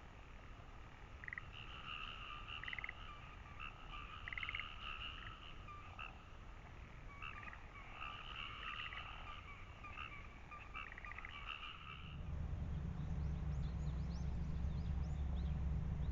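Frogs calling in repeated pulsed croaks and short trills. The calls stop about twelve seconds in, when a low steady hum comes in and becomes the loudest sound.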